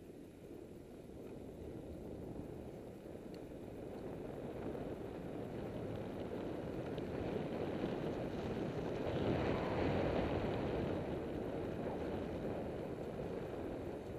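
Wind rushing over the microphone with tyre rumble from a bicycle rolling on tarmac, growing louder and loudest about two-thirds of the way through.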